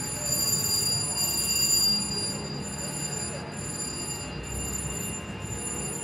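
A VGT Mr. Money Bags slot machine spinning its reels for one play, a little louder in the first two seconds, over a steady casino din of other machines' held electronic tones and faint voices.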